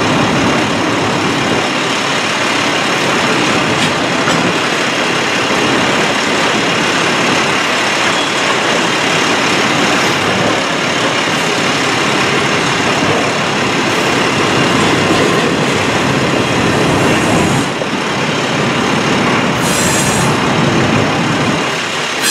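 Double-stack intermodal well cars of a BNSF freight train rolling past, with the loud, steady noise of steel wheels on the rails and the cars rattling.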